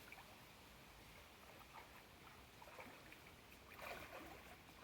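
Faint water sloshing and trickling, with a slightly louder swash about four seconds in.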